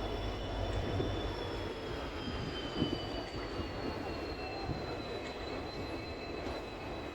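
Passenger train running along the track: a steady rumble of coaches and wheels, with a thin high squeal in two tones that slowly drops in pitch, and a single small knock about three seconds in.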